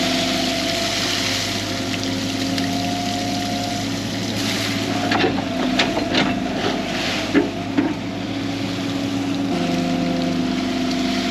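Excavator's diesel engine running steadily under load while the bucket digs. From about 4 to 9 seconds the engine note changes and a series of short, sharp knocks and splashes come through, the loudest two near the end of that stretch.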